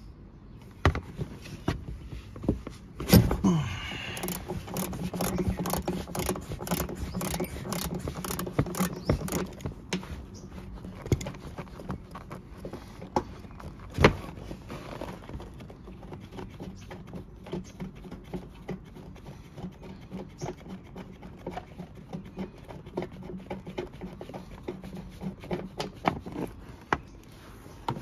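Ratchet wrench clicking in repeated strokes as a car's seat belt lower anchor bolt is loosened and backed out, with two sharp metal knocks, one a few seconds in and one about halfway.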